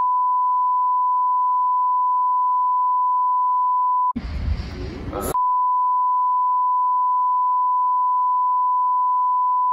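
A steady pure-tone censor bleep at about 1 kHz, bleeping out the rapper's lyrics. It holds for about four seconds, gives way for just over a second to muffled, unbleeped voice and noise, then sounds again for another four seconds.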